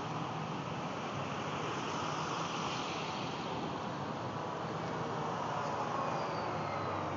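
Steady rush of wind and road noise from a car driving slowly, heard from inside the car, with a faint low engine hum beneath it.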